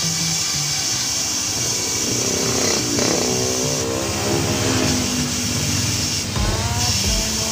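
Road traffic going by: vehicle engines rising and falling in pitch as they pass, with a motorcycle speeding up about six seconds in, over a steady high hiss.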